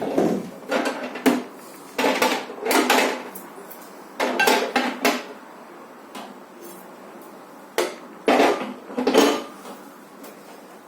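Dishes and utensils clattering in several short bursts of clinks and scrapes as a dish of leftover food is handled, with a quieter pause about halfway through.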